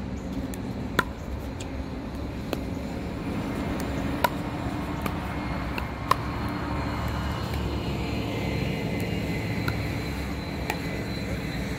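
Pickleball paddles hitting a hard plastic ball in a doubles rally: sharp pops a second or two apart, the loudest about four and six seconds in. Under them runs a steady low rumble that swells in the middle.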